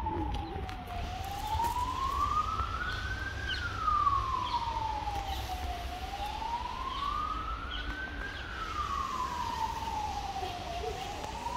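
A wailing siren, its pitch rising and falling slowly, one full rise and fall about every five seconds, over a steady low rumble.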